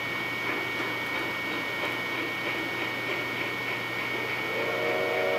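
Steady background hiss with a low hum and a thin high steady tone. About four and a half seconds in, a sustained chord of several held tones begins.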